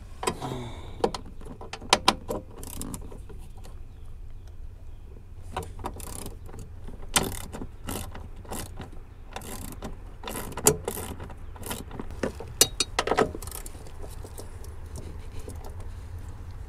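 Hand ratchet clicking and metal tools clinking against the parking-brake pedal bracket as its bolts are worked on, in irregular bursts of sharp clicks. A low steady hum runs underneath.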